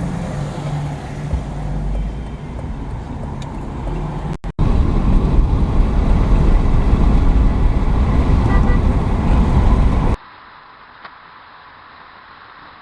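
Classic car engines running in spliced clips. A steady low engine hum gives way, after a brief cut, to a louder engine running that stops abruptly about ten seconds in, leaving a quiet outdoor background.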